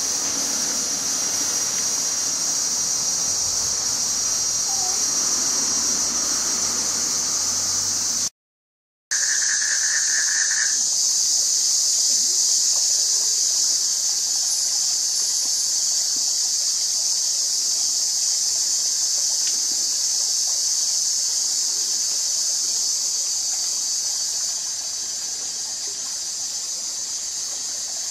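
Steady, high-pitched insect chorus from the surrounding vegetation. It cuts out for under a second about a third of the way through.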